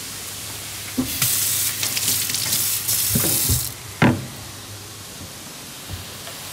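Diced tomatoes and minced meat sizzling in a frying pan over a high gas flame as they are stirred with a wooden spoon. The sizzling is loud from about a second in until nearly four seconds, then comes one sharp knock, and quieter sizzling follows.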